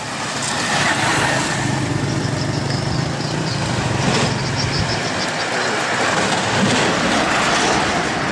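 A motor vehicle passing close by on the road, its engine and tyre noise swelling and then easing off after about five seconds.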